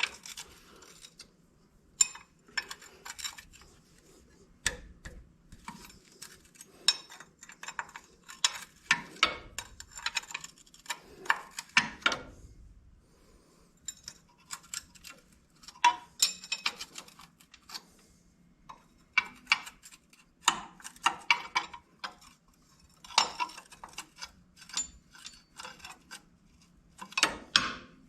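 Metal hand tools clicking and clinking in short, irregular bursts, with some ratchet-like runs, as the bolts holding the steering shaft are worked loose.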